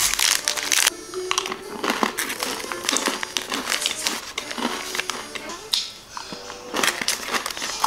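Crunchy food being bitten and chewed close to the microphone: a run of sharp crackles and clicks, with a TV show's music and voices low in the background.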